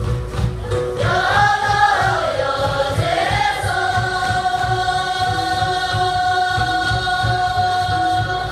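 Sherpa dance song: voices singing together over a steady low beat. About a second in the voices enter with a phrase that rises and falls, then hold one long note.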